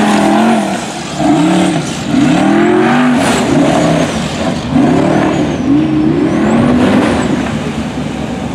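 Formula Offroad hill-climb buggy's engine revving hard in repeated surges, its pitch rising and falling about once a second as the driver works the throttle up a steep sandy climb.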